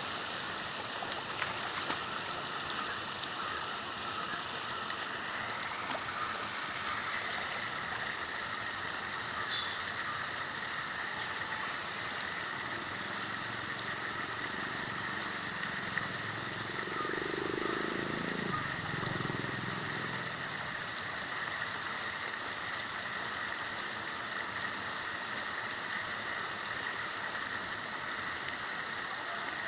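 Steady rushing noise of water at the canal's edge, with a brief louder low sound just past halfway.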